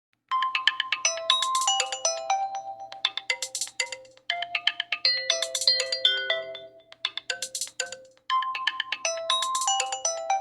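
A Nokia 8000 4G default ringtone: a melody of short, quickly fading notes that starts about a third of a second in, its phrase repeating about every four seconds.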